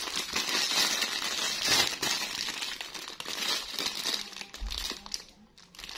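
Crinkling of a clear plastic bag as a cat harness and leash set is handled in its wrapping, with lots of small crackles that thin out near the end.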